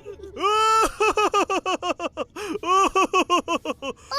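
A cartoon child character laughing in a high voice: one drawn-out 'haa' about half a second in, then a long, rapid string of 'ha-ha-ha's. It is the teasing laugh of a boy whose prank has fooled people.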